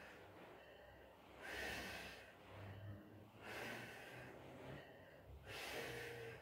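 A woman breathing hard from exertion during an abdominal exercise: about four faint breaths, each a short rush of air, spaced a second or two apart.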